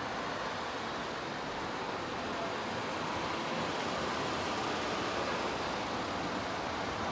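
Wind blowing across the camera's built-in microphone: a steady rushing noise with a flickering low rumble, growing slightly louder.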